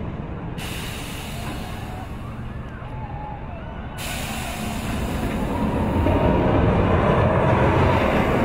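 Steel roller coaster train rumbling along its track with a steady hiss, getting louder over the last few seconds.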